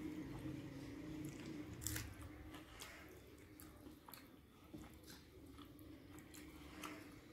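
Close-up eating sounds: a person chewing rice and fish curry, with small wet mouth clicks and fingers squishing food on a plate. The sharpest click comes about two seconds in, over a faint steady hum.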